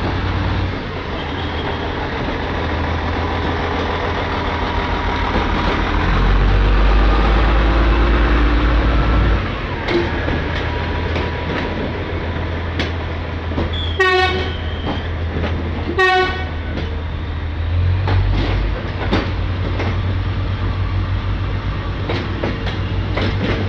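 Indonesian diesel multiple unit (KRDI) passing, its diesel engines giving a steady low rumble and its wheels clicking over rail joints. Two short horn toots sound about two seconds apart, around the middle.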